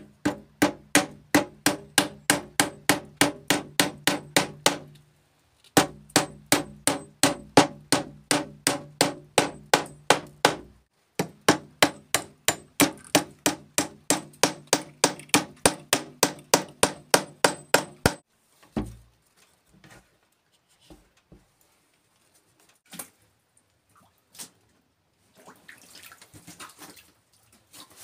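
Small hammer tapping rapidly on an old wooden window frame, light blows about five a second, while the glass is fitted. The tapping comes in three long runs with short breaks and stops about 18 seconds in, followed by a few scattered knocks.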